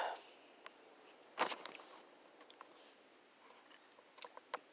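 Light knocks and clicks of the camera being handled and moved on a wooden table: a short cluster about a second and a half in, and a few small ticks near the end.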